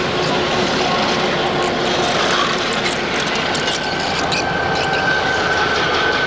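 Diesel freight locomotives, including Escanaba & Lake Superior 1220, passing close by at speed with a loud, steady rumble of engines and wheels. About halfway a high, steady squeal sets in, with scattered wheel clicks as the locomotives give way to the first flatcars.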